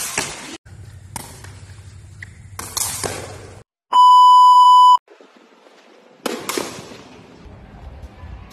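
A loud steady test-tone beep lasting about a second, starting about four seconds in and cutting off abruptly: the TV colour-bars tone used as an edit transition. Before and after it come a few sharp knocks of a takraw ball being kicked.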